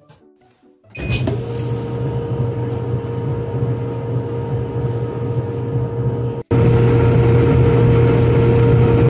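Whirlpool Cabrio clothes dryer starting up and running with a steady hum, its new idler pulley fitted. A higher steady tone comes in just after start-up. The sound breaks off briefly about six and a half seconds in and returns louder.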